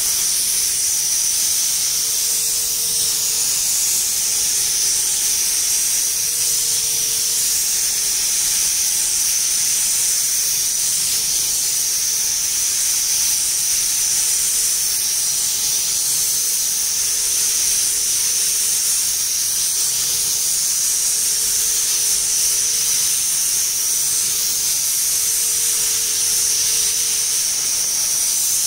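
Steady hiss of compressed air from a gravity-feed paint spray gun spraying base coat, with a faint hum underneath that comes and goes.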